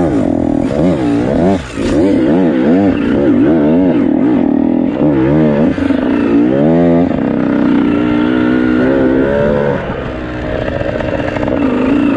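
Dirt bike engine revving up and down over and over as the throttle is worked on a rough, steep trail, its pitch rising and falling several times a second. The engine briefly drops off twice and eases to a lower, steadier note for a second or so near the end before picking up again.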